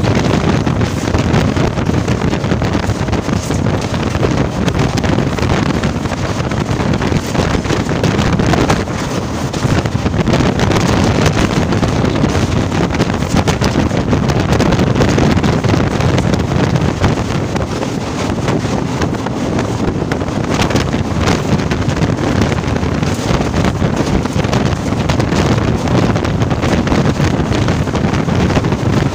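Loud wind buffeting the microphone at an open window of a moving train, over the steady rumble of the train running, with frequent short clicks throughout.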